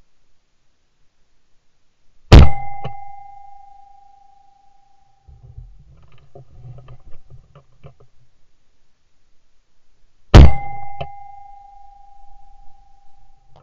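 Two shotgun shots at passing woodpigeons, about eight seconds apart, each a sharp loud crack followed by a ringing tone that fades over a couple of seconds. Quieter rustling and clicks come between the shots.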